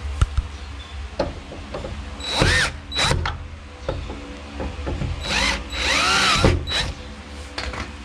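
Cordless drill-driver tightening the mounting screws of a deadbolt's interior thumb-turn plate in four short bursts, each whirring up and winding down: two a little over two seconds in and two more later on. Small clicks and knocks from handling come between the bursts.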